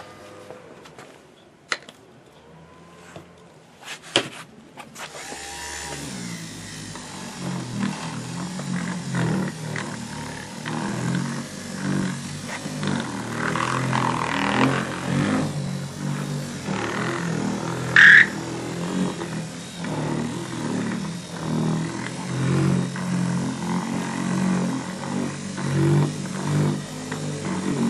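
Electric buffer running as it polishes a plastic headlight lens with rubbing compound, its note wavering as the pad is pressed and moved. A few clicks and knocks come before it starts about five seconds in, and there is one brief squeak about two-thirds through.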